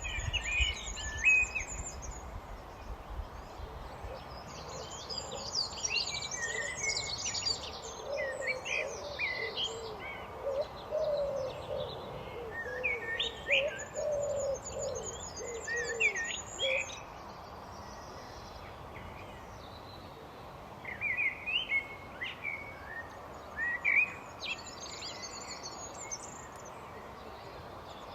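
Common blackbird and other songbirds singing in separate phrases with short pauses, over steady outdoor background noise. A lower-pitched warbling call runs alongside for several seconds in the middle.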